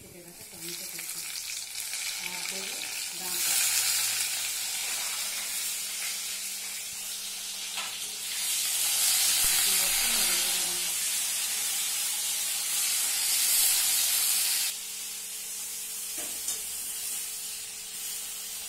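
Sliced potatoes, drumstick (moringa) pods and tomato sizzling in hot mustard oil in a wok as they are stirred with a spatula. The sizzle grows loud a few seconds in, surges twice more, and falls off suddenly about three-quarters of the way through.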